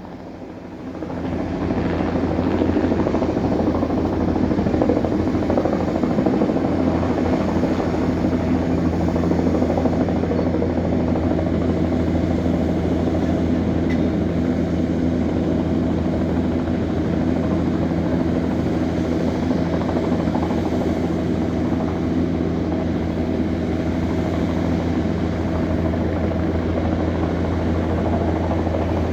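Helicopter running steadily, its rotor and engine making a low pulsing hum with several steady tones above it. It swells over about the first two seconds, then holds level.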